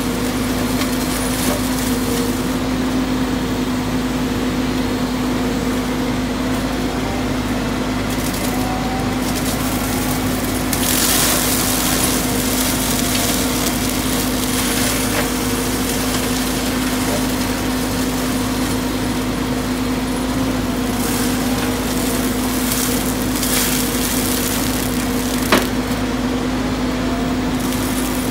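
Hydraulic brush mulcher on a Volvo EWR150E wheeled excavator, running with a constant hum while it shreds brush and saplings, with crunching and splintering wood that grows louder in bursts. A single sharp crack sounds near the end.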